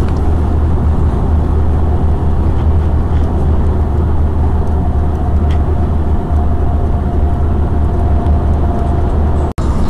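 Passenger-car cabin noise at motorway speed: a steady low rumble of engine and tyres on the road, heard from inside the car. It cuts out for an instant near the end.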